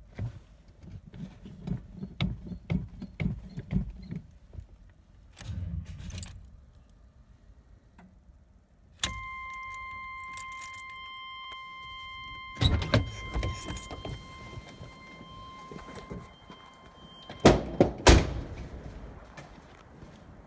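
Keys jangling and clicking inside a 1990 Chevrolet Suburban. About nine seconds in, a steady electronic warning tone starts and sounds for several seconds. Near the end there are two loud thuds.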